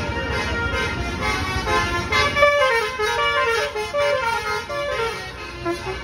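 Basuri telolet horn on a passing coach bus playing a quick melody of stepped tones over the bus's engine noise, starting about two and a half seconds in, with a steady rhythmic beat underneath.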